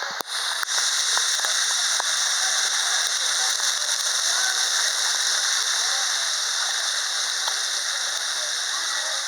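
Waterfall rushing, a steady hiss of falling water. A couple of brief knocks come right at the start.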